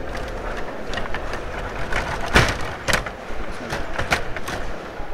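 Table hockey in play: the rods rattle steadily as they are pushed, pulled and spun. Over this come sharp clacks of the puck striking the players and the boards, the loudest about two and a half seconds in.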